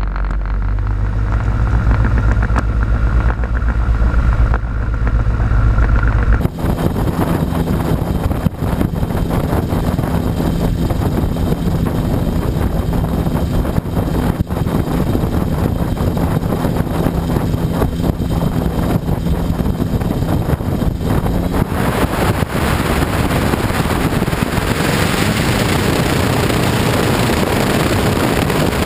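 Quicksilver Sport 2S ultralight's engine and pusher propeller running steadily, with wind rushing on the microphone. About six seconds in the sound changes abruptly to a rushing engine-and-wind noise, and a little past twenty seconds it grows louder and fuller as power comes up for the roll down the dirt strip.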